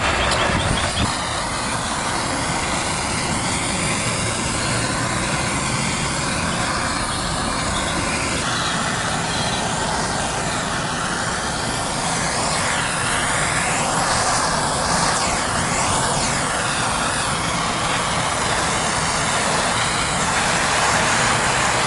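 Handheld gas torch flame burning steadily as it scorches pine wood to char and distress it: a continuous loud rushing noise whose upper range shifts and sweeps slowly.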